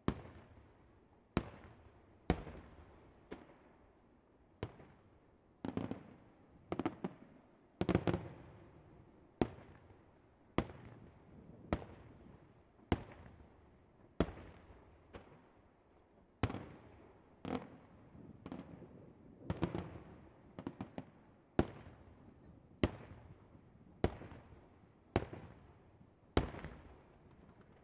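Fireworks display: a steady series of sharp firework bangs, about one a second, each trailing off in an echo. A few bangs are followed by brief crackling.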